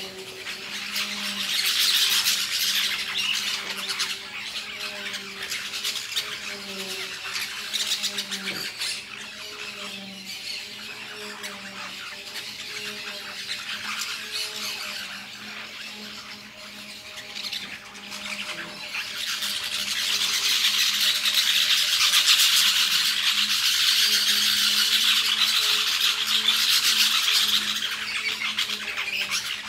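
A flock of small green parakeets chattering and screeching as they feed. The calling swells loudest just after the start and again through the second half, over a faint steady low hum.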